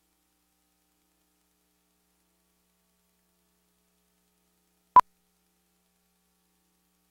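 Dead silence broken once, about five seconds in, by a single short, high beep: the '2-pop' sync tone of a Final Cut Pro countdown leader, sounding as the count reaches two.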